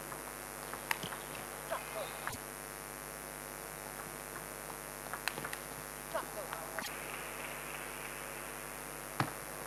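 Table tennis hall ambience: a steady electrical hum, with scattered sharp clicks of a table tennis ball and short squeaks of players' shoes on the floor.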